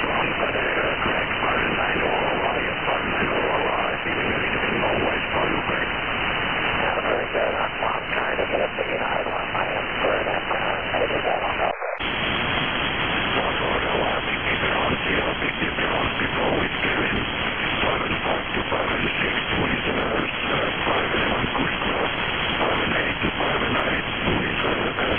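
Six-metre single-sideband receiver audio during an aurora opening: a steady, rough hiss of auroral noise and aurora-smeared signals, cut off sharply at the top by the receive filter. Just before halfway it drops out for a split second as the receive filter is switched, then comes back with a slightly brighter, wider hiss.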